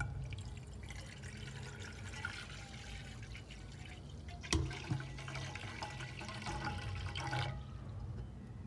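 Water running with a steady hiss, with two sharp knocks about halfway through; the water stops about a second before the end.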